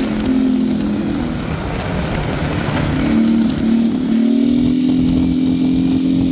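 Can-Am Outlander 850 ATV's V-twin engine running under way, its pitch dipping and rising with the throttle and then climbing steadily over the last couple of seconds.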